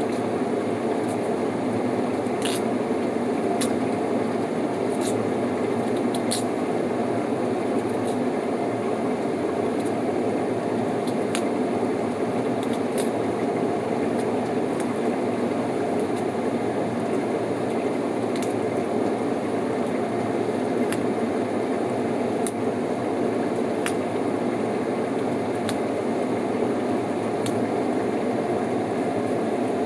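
A pot of ribs and potatoes bubbling steadily as it cooks, with faint scattered pops and clicks.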